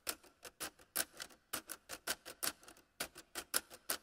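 Rapid, irregular sharp clicks or taps, several a second.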